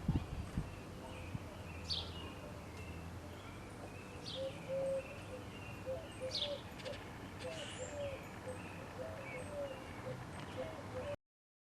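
Backyard songbirds calling: a sharp, high, downslurred call repeats every second or two among shorter chirps, and a run of short, lower notes joins in the second half, over a low steady rumble. The sound cuts off suddenly near the end.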